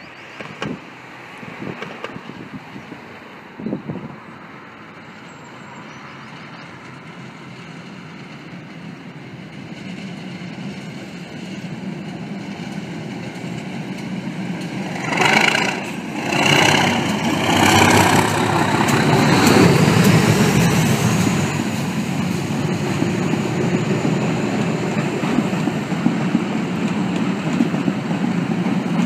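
English Electric Class 37 diesel locomotive approaching and passing under power at the head of a train, its engine noise building steadily. Two short warning blasts sound about halfway through, then a high turbocharger whistle rises and holds as the locomotive passes and the coaches roll by.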